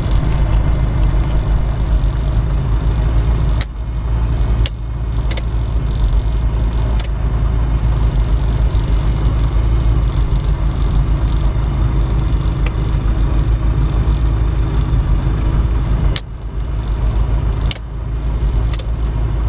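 Light aircraft's piston engine running steadily, heard from inside the cockpit, with brief dips in level and clicks twice, about 4 s in and again near the end, as the ignition switches are flicked. The engine keeps running with the switches off, which the pilot takes for live magnetos.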